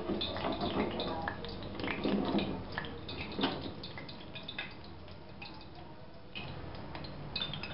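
Hot cooking oil in a frying pan crackling with many small pops and drips just after the fried chicken is lifted out. The pops are dense at first and thin out after about four seconds.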